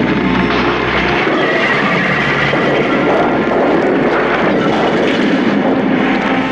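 Loud, continuous rumbling roar of a wall being smashed through and crumbling, a TV sound effect of rubble breaking apart.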